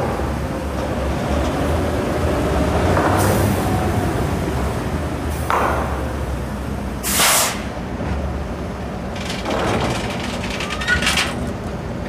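Plastic toy street sweeper rolling across a tabletop with a steady low rumble, broken by several short hissing bursts.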